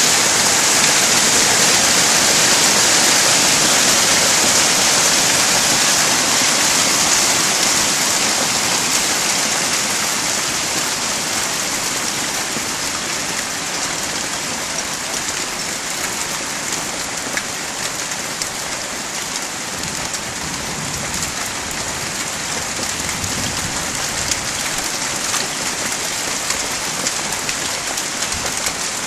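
Heavy rain falling: a dense, steady hiss that is loudest at first and eases a little after about ten seconds.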